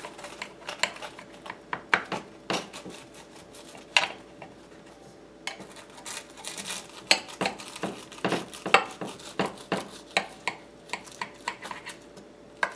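Metal utensils scraping, clicking and knocking against a baking dish while cutting into and serving a puff-pastry-topped chicken pot pie, in irregular strokes with a few sharper knocks.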